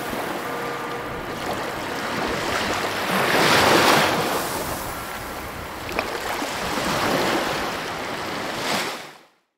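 Ocean waves washing in and drawing back in slow swells, the biggest about four seconds in, then fading out to silence near the end.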